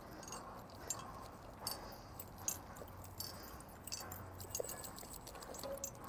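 Faint, scattered small clicks and light knocks over a low, steady background rumble.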